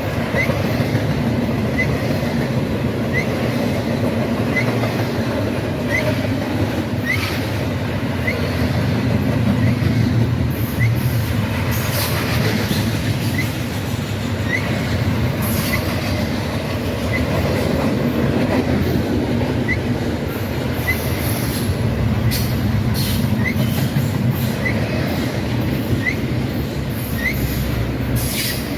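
Freight train rolling past, a steady rumble of cars on the rails with brief high-pitched wheel squeals now and then.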